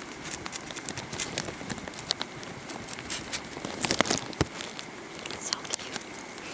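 A striped skunk rummaging in a garbage can, rustling and crinkling among plastic plates and trash, with many small clicks and a louder burst of knocks about four seconds in.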